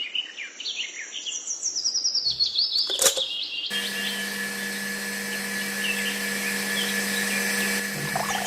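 Birds chirping: a dense run of quick high chirps over the first three seconds, a sharp click, then fainter scattered chirps over a steady low hum and hiss.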